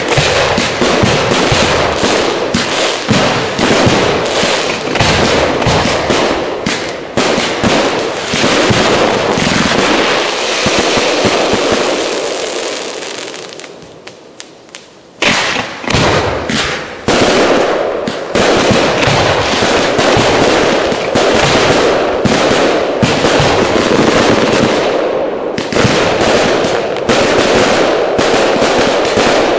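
Professional display fireworks firing a dense, rapid barrage of shell bursts and crackle. The barrage dies away to a brief lull about halfway through, then resumes with a sharp bang and continues densely.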